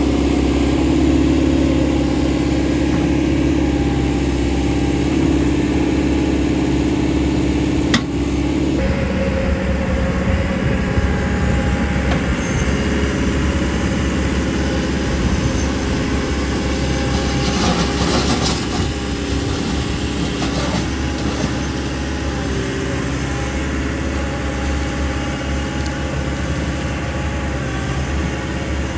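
2023 JCB 3CX14 backhoe's diesel engine running steadily. A strong steady tone in its sound drops away about nine seconds in, just after a sharp click. A short spell of knocks comes around halfway through.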